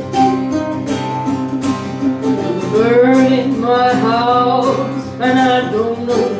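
Live acoustic band music: acoustic guitar playing the song's opening, with a sliding melody line, sung or played, coming in about two and a half seconds in.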